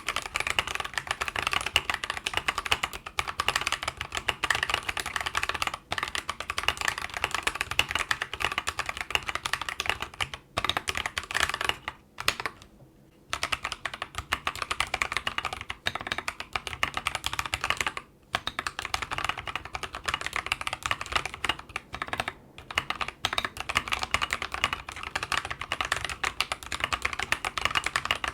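Continuous fast typing on a mechanical keyboard fitted with Akko CS Jelly Blue switches: stock switches first, then, after a short pause about 13 seconds in, the same switches lubed. Rapid key clacks with brief pauses between bursts.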